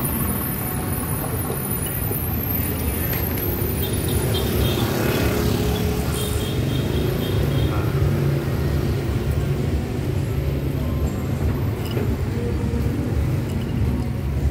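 Steady street traffic rumble of motor vehicles passing, with a few faint higher tones over it.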